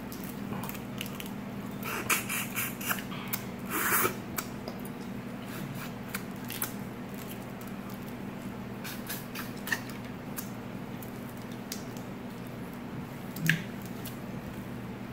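Boiled crawfish being peeled and eaten by hand: scattered cracks and wet squishing clicks of the shells, most of them in a cluster about two to four seconds in. A steady low hum runs underneath.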